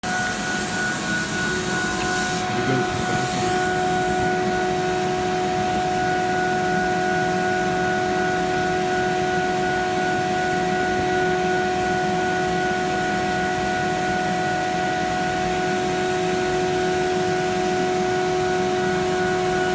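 CNC router spindle running steadily at about 20,000 RPM as its cutter machines sandal soles, giving a constant whine over a noisy rush. An extra high hiss fades out within the first few seconds.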